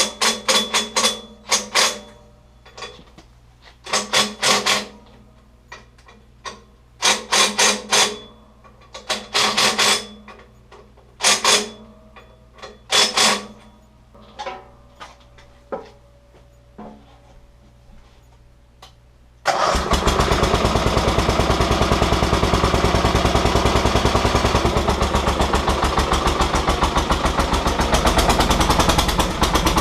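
Clusters of sharp metal clanks and knocks from tools working on the backhoe's pedal linkage and return springs. About two-thirds of the way in, the Terramite backhoe's engine starts abruptly and keeps running loudly with a rapid, even pulsing.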